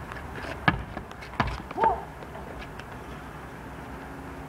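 Basketball bouncing twice on the outdoor court, a little under a second apart, followed by a short shout from one of the players.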